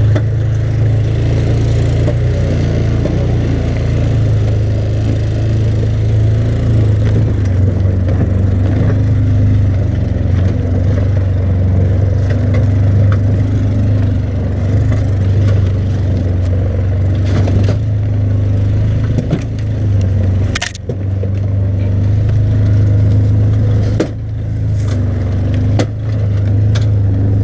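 ATV engine running steadily while towing a loaded utility trailer over rough ground, with knocks and clatter from the trailer and its load. The trailer is not hooked on properly, which adds to the rattling; a few sharp knocks stand out in the second half.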